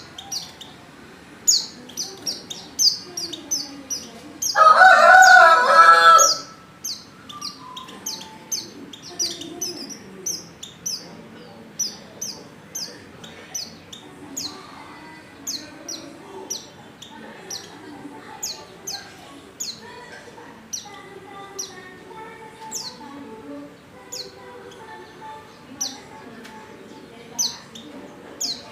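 Female white-eye (pleci) calling: short, high, thin chirps repeated at irregular intervals, played as a lure call to set male white-eyes singing. A rooster crows once, loudly, about four and a half seconds in.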